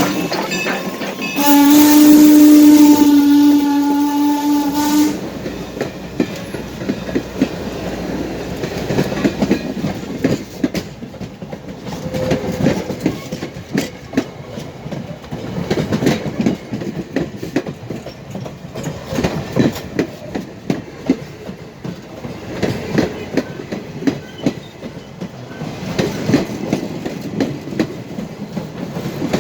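Steam whistle of Norfolk & Western 475, a 1906 Baldwin steam locomotive, blowing one long blast of about three and a half seconds. The train then rolls by with a steady clickety-clack of wheels over the rail joints.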